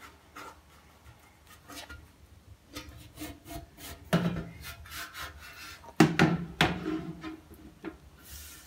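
Fingers rubbing and scraping loosened burnt-on carbon off a metal baking tray in a series of short scrapes; the crust, softened by ammonia, comes away without scrubbing. Two short voice sounds come about four and six seconds in.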